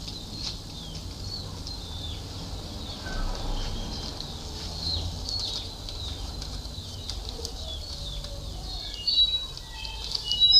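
Small birds chirping repeatedly in the background, with many short, high, falling chirps and a run of clearer, higher notes near the end.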